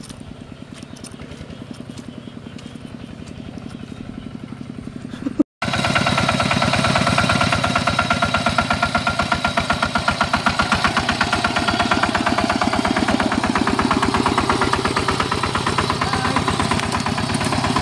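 Two-wheel walking tractor's single-cylinder diesel engine chugging steadily as it pulls a loaded trailer. It is fainter and slowly growing louder for the first five seconds, then close and loud after about five and a half seconds.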